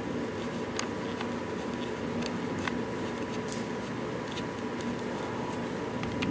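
A few faint clicks from a small screwdriver turning the screw of a plastic toy's battery cover, over a steady background hum with a faint steady tone.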